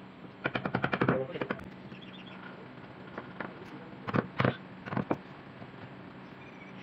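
Hand carving chisel being driven into wood with a wooden mallet: a quick run of light taps about half a second in, then several separate knocks, over a low steady hum.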